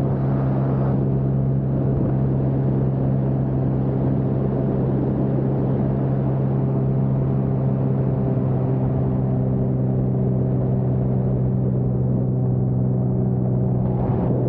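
Lake Renegade amphibian in low-level flight: its six-cylinder Lycoming engine and pylon-mounted pusher propeller droning steadily at cruise power, with a deep, even hum and a layer of rushing air.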